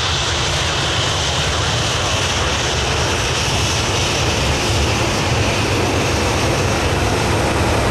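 Jet airliner engines running, a loud steady roar with a strong low rumble.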